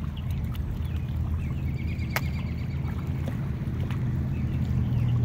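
Rocks being rinsed by hand in shallow flowing creek water: water splashing and trickling, with a couple of sharp clicks and a steady low rumble underneath.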